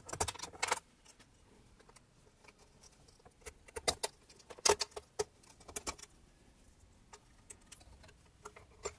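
Plastic wire-harness connectors being worked loose and unplugged from a sewing machine's circuit board: scattered small clicks and rattles, coming in short clusters at the start and again around four to six seconds in.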